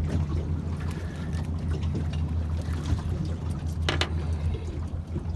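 Small fishing boat's motor running at a steady low hum, with water sloshing and splashing against the hull. One short sharp sound about four seconds in.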